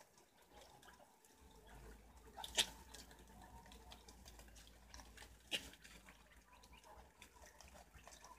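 Faint clicking and rustling of a group of preás (wild cavies) feeding among leaves and scraps, with two sharper clicks about two and a half and five and a half seconds in.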